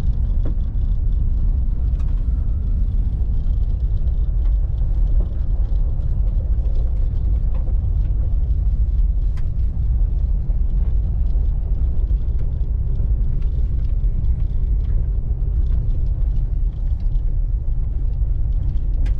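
Truck driving slowly over a rough dirt trail: a steady low rumble of engine and tyres, with small scattered knocks and rattles.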